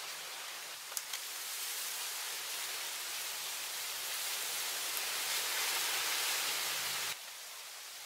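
Steady high hiss of forest ambience that swells gradually and cuts off abruptly about seven seconds in, with a few faint clicks near the first second.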